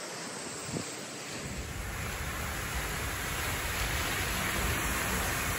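Fountain jets splashing into a pool, a steady rushing of water that grows louder. From about a second and a half in, wind rumbles on the microphone.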